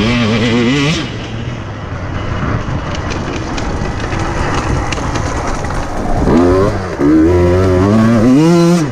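KTM 150 EXC TPI's fuel-injected two-stroke single-cylinder engine revving high under throttle, then running lower and rougher for several seconds. About six seconds in it revs up hard again, its pitch rising, and cuts back sharply at the very end.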